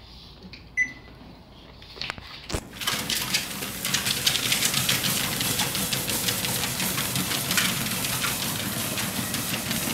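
A ProForm treadmill starting up: a short beep and a click, then, about three seconds in, the belt running steadily. Many quick clicks of the Yorkshire terriers' claws pattering on the moving belt are heard over it.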